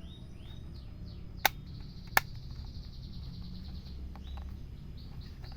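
Birds chirping in the background, a run of short, high, falling chirps, with two sharp clicks about a second and a half and two seconds in.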